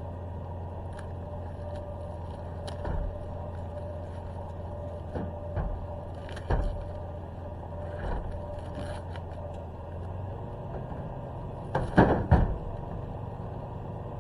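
A vehicle engine idling with a steady low hum that changes about ten and a half seconds in, under a handful of scattered knocks and thumps, the loudest a quick cluster about twelve seconds in.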